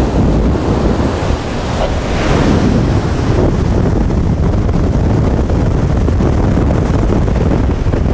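Wind buffeting the microphone at the open helm of a Sunseeker 88 motor yacht at high planing speed, over the rush of its wake. The noise is loud and steady.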